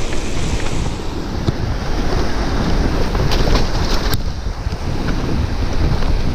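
Wind buffeting the microphone over the rumble of mountain bike tyres rolling down a dirt forest trail, with many small clicks and rattles from the bike and a sharper knock about four seconds in.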